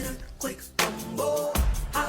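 Pop song playing with a heavy bass-drum beat and a sung vocal line.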